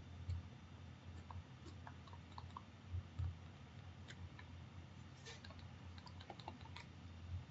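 Faint, irregular clicks and taps of a pen stylus on a tablet screen as a heading is handwritten, over a low steady hum.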